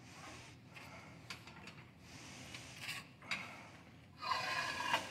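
Faint handling noise: light clicks and taps as skewered food pieces are lifted and set back down on a ceramic plate. A brief, louder noise comes near the end.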